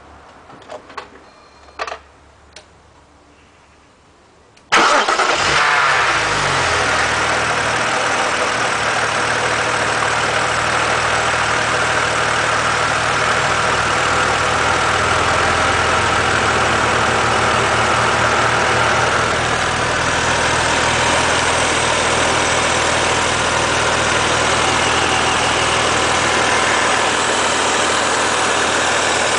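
A few clicks, then the BMW Z4 3.0si's straight-six engine starts about five seconds in, flares up and falls back over a second or so, and settles into a steady idle. A constant hiss sits over the engine note throughout the idle, the hissing noise in question.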